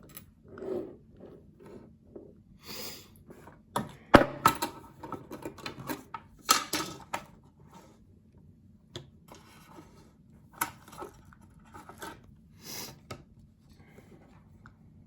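Small metal parts of a residential pin-tumbler lock being handled while it is taken apart: irregular clicks, taps and rattles with a few short rubbing sounds. The loudest is a sharp knock about four seconds in, followed by a quick flurry of clicks, with a few more clicks near the end.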